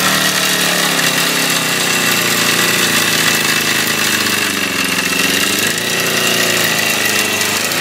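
Motorcycle engine running just off idle, its revs rising and falling gently and slowly.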